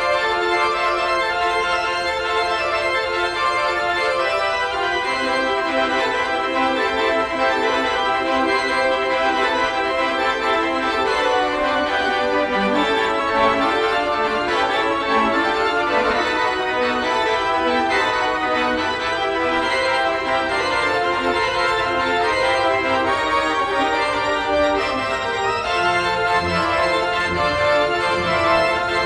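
Organ music of slow, sustained held chords; lower notes enter about five seconds in, and a deeper bass line comes in near the end.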